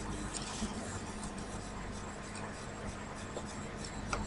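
Room tone of a voice-over recording: a steady hiss with a faint low hum and a few faint ticks.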